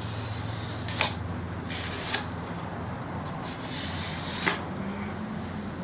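A scrap piece scraping excess hot glue off a glued joint on an EDF pod: three short scraping strokes with sharp clicks among them.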